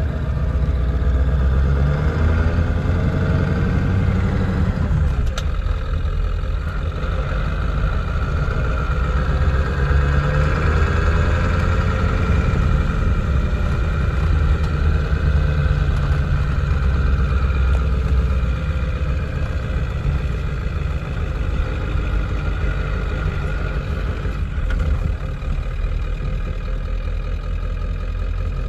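1995 Ford F-350's 7.3L Powerstroke turbo-diesel V8 running under way, heard from inside the cab, its engine note rising and falling several times as the truck is driven and shifted through the manual gearbox.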